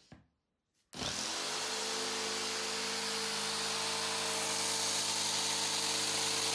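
Metabo electric jigsaw starting up about a second in, its motor pitch rising briefly, then running steadily as it cuts through a wooden sheet, stopping near the end.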